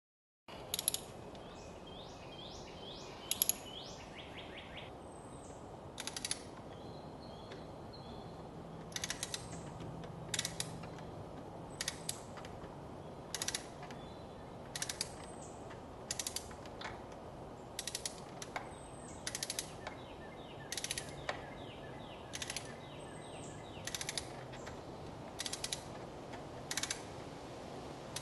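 Ratchet wrench clicking in short bursts about every second or so, with runs of quick pawl ticks on the return strokes, as a spark plug is turned with a ratchet and extension.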